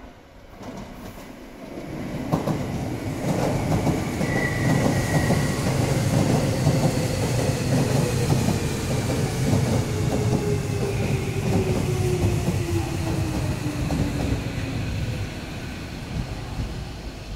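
Tobu 70000 series electric train pulling slowly into a station: wheels clack and rumble on the rails, and a whine falls steadily in pitch as the train slows. A brief high squeal comes about four seconds in, and the sound eases near the end.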